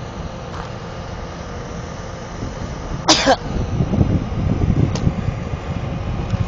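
A crane's engine running steadily. About three seconds in there is a short, sharp burst of noise, and after it the engine sound gets louder and rougher.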